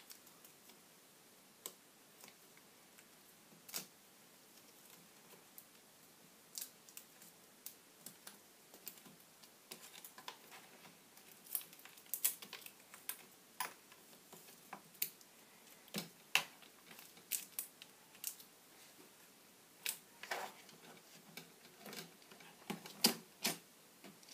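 Small plastic clicks and taps at irregular intervals as a laptop screen panel and its plastic parts are handled and fitted back together, sparse at first and busier from about ten seconds in.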